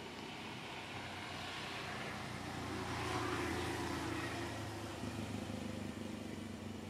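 A motor vehicle passing by: engine and road noise swell to a peak about three seconds in, then slowly fade.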